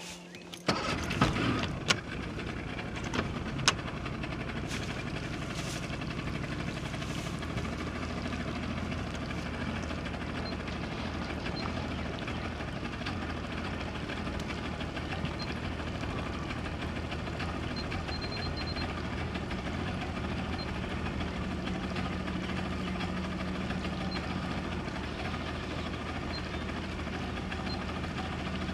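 An engine running steadily from about a second in, with a few sharp knocks in the first few seconds.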